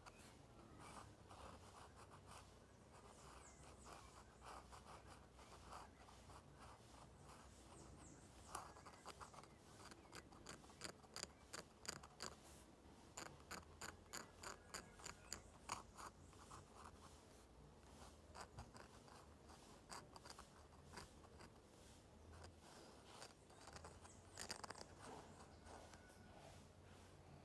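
Faint scratching of a dip pen's metal nib on textured drawing paper. It comes as many quick short hatching strokes, thickest in the middle stretch, with a few more near the end.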